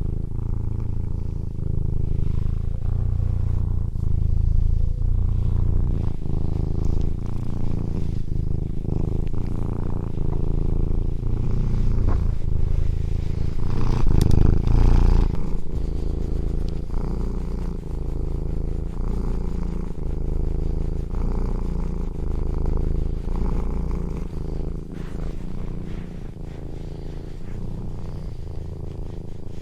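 Domestic cat purring close up: a continuous low rumble that swells and eases with each breath. It grows louder for a moment about halfway through.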